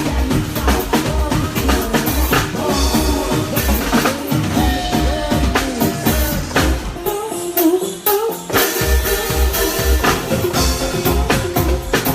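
Live band playing: a drum kit and bass hold a steady beat under a melodic line, possibly voice. The drums and bass drop out briefly a little past halfway, then come back in.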